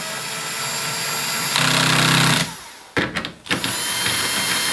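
Power drill bevelling the holes in an MDF jig, run in two bursts. The first run bites harder about a second and a half in and stops about a second later. After a few knocks, the drill starts again.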